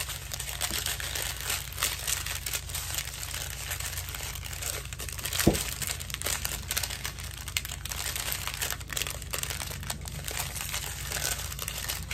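Small plastic bags of diamond-painting drills crinkling as they are handled and gathered up, with one sharp tap about halfway through.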